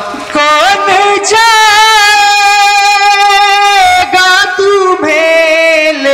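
Male voice singing a nauha, a Shia mourning lament, holding long, wavering notes that slide between pitches, with short breaths between phrases.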